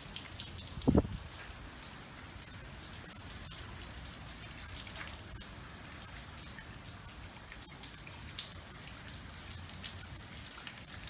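Steady tropical-storm rain falling, with faint scattered drips and one short, low thump about a second in.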